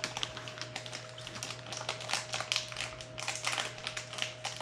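Quick, irregular crinkles and small plastic clicks from a blind-bag mystery toy being torn open and handled.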